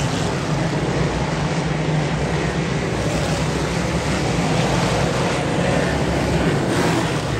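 Dirt Modified race cars' V8 engines running at speed on the track: a loud, steady drone of several engines together.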